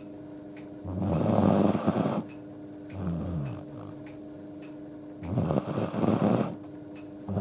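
Akita dog snoring loudly in deep sleep: two loud snores about four seconds apart, each followed by a softer breath that falls in pitch. The owner puts the snoring down to the dog sleeping with its head tilted up, not to a respiratory illness.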